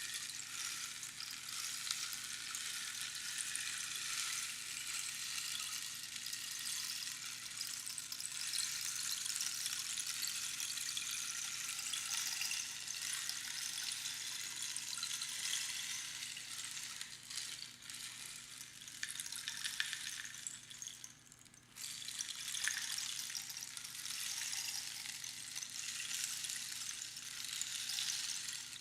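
Rainstick: small pebbles or beans trickling down a hollow tube past the pins inside, making a continuous pattering hiss like falling rain. About 21 seconds in the trickle thins and briefly drops away, then starts again.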